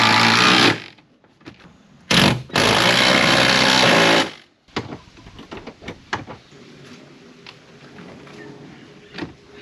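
A power tool runs in two bursts, the first under a second long and the second about two seconds, driving seat bolts tight. Light clicks and handling noises follow.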